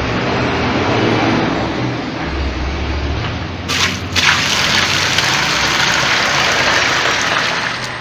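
Water gushing from a bucket into the plastic tub of a top-loading washing machine, splashing onto the tub floor. The rush turns louder and brighter about four seconds in and eases off just before the end.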